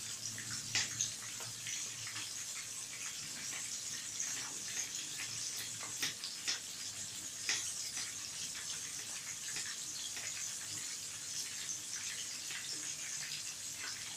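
Oil sizzling and bubbling steadily around a whole egg-coated fermented tilapia frying in a shallow pan, with scattered sharp pops and crackles.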